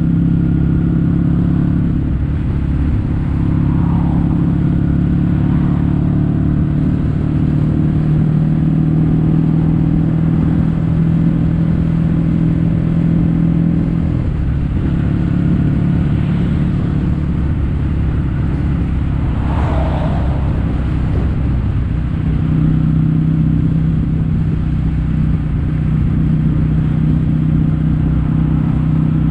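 Kawasaki W800's air-cooled parallel-twin engine heard through Yamato stainless-steel Caburton silencers, running steadily while the bike is ridden. Its pitch shifts slightly a few times as the throttle or gear changes.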